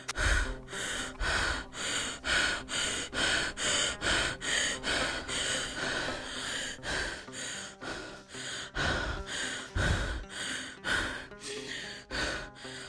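Rapid, heavy breathing, sharp gasps in and out about twice a second, the anxious breathing of a panic attack, over music with sustained tones.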